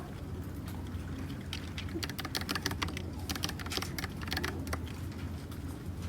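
Typing on a mechanical keyboard with linear red switches (Dugard x Thinkway Toche): a run of quick key clacks, thickest in the middle of the stretch.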